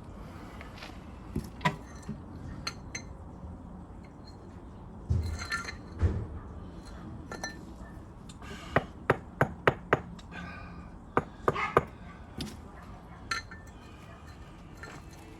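Sharp clinks and taps of a metal tool striking brick and masonry in irregular groups, with a couple of duller thumps about five seconds in and a quick run of about five taps near the middle.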